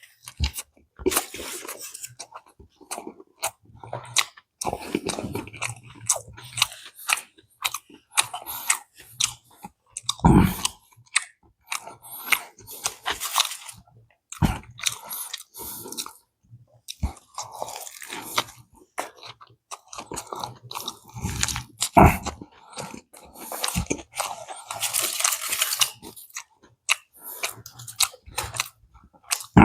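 Close-up chewing and crunching of a burger, with wet mouth sounds and short bites in an uneven rhythm. A few louder knocks, about ten, fourteen and twenty-two seconds in.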